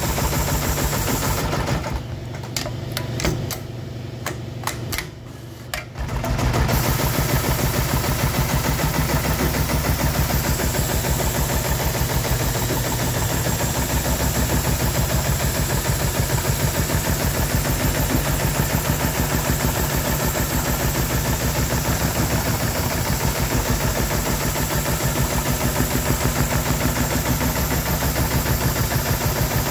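Industrial pattern sewing machine stitching at speed in a fast, even rhythm. About two seconds in it stops for roughly four seconds, with only a few sharp clicks, then starts stitching again.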